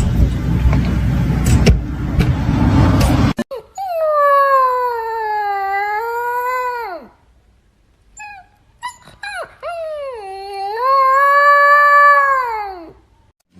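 Dog howling: two long howls, each sagging in pitch and then dropping away at the end, with a few short yelps between them. Before the howling, a loud rushing noise cuts off suddenly.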